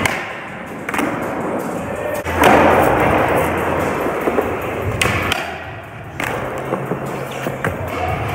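Skateboard wheels rolling over a concrete floor, loudest from a couple of seconds in until about five seconds. Sharp board clacks and thuds come at the start, about a second in, and twice more around five and six seconds.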